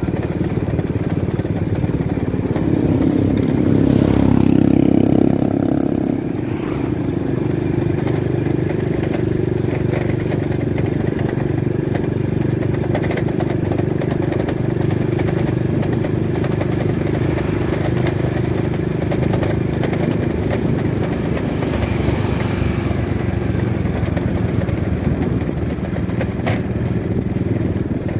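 Motorcycle engine running steadily while riding, with road and wind noise; it grows briefly louder about four seconds in.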